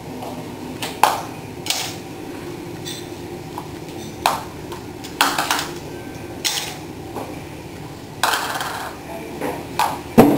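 Small ceramic bowls and chopsticks clinking and knocking against a glass tabletop as the table is set: a string of sharp clinks, one every second or two, some with a brief ring.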